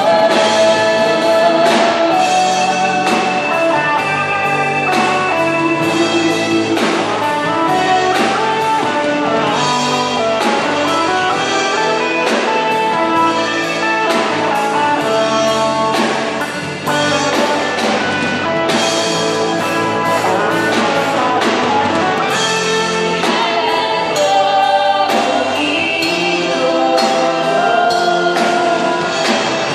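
Live pop-rock band playing a song: electric guitars, keyboard and drum kit with a steady beat, and singers on microphones.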